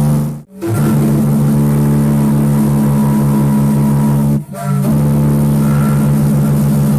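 Deep ship's whistle sounding long blasts, a low chord of two or more tones together, with short breaks about half a second in and again about four and a half seconds in.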